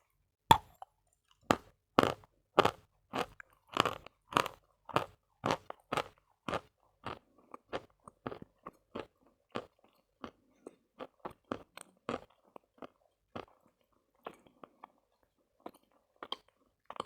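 Khrapovsky chalk being bitten and crunched between the teeth: one sharp bite about half a second in, then steady crisp crunches about two a second that grow softer and sparser in the second half.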